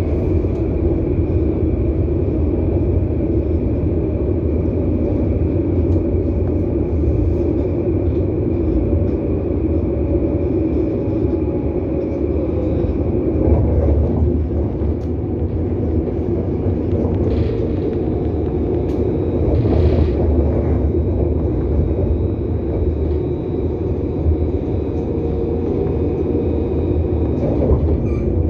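Steady running rumble of a tram heard from inside the car as it travels along the line, with a faint high steady whine over it and a couple of slight swells in loudness.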